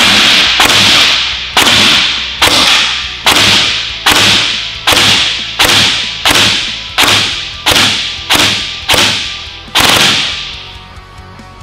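Gel Blaster Frontier Honey Badger, an electric gel blaster with a split gearbox and 480 motor, firing a steady string of single shots through a chronograph during a velocity test. There are about one and a half sharp snaps a second, each with a short decaying tail. The firing stops about ten seconds in.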